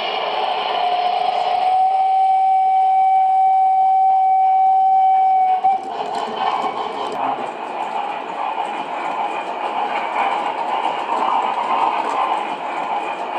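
Gauge 1 model steam locomotive sounding its whistle in one long steady note for about five seconds, then the train running along the track with a steady rolling rumble.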